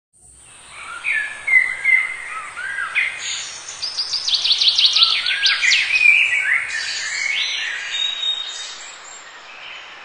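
Several birds singing and calling over a steady hiss, with a quick run of repeated high, falling notes around the middle. The sound fades in at the start.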